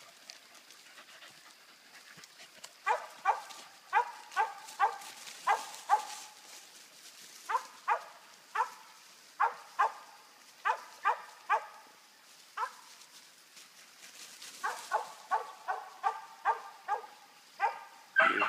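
Squirrel dog barking treed at a squirrel: sharp barks about two to three a second, in runs broken by short pauses, starting about three seconds in.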